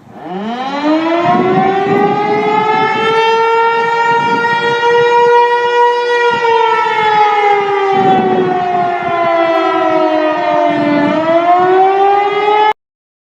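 Outdoor warning siren winding up from a low pitch over about two seconds into a steady wail, then sliding slowly down and rising again before cutting off abruptly near the end, with a rough rumble underneath.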